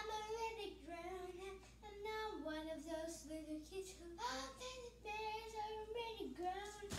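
A young girl singing solo without accompaniment, holding notes that step and slide between pitches.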